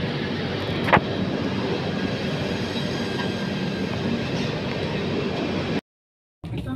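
Running noise of an LHB passenger coach rolling slowly on rails, heard through an open coach doorway: a steady rumble of wheels on track, with one short sharp squeal about a second in. The sound cuts out for a moment near the end.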